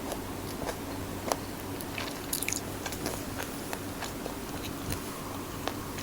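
Close-up eating sounds: a mouthful of squid sisig being chewed, with scattered wet mouth clicks and smacks and one sharper click about a second in, over a steady low hum.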